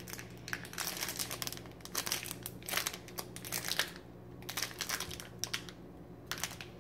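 Crinkly plastic wrapping on a bar of soap crackling as it is handled, in uneven spells with a short lull a little past halfway.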